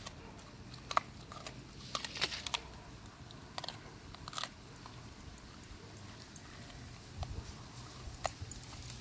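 Dog crunching and chewing a raw turkey wing, the bones cracking in irregular sharp crunches, with a cluster of them about two seconds in.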